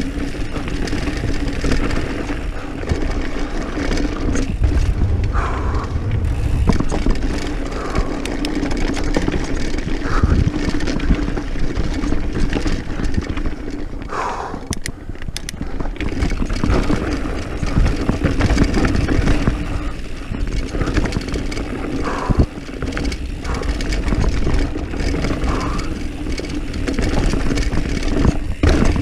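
Diamondback Mission 1 mountain bike descending a dirt trail at speed: tyres rolling and rattling over the ground, with wind buffeting the camera microphone as a steady low rumble.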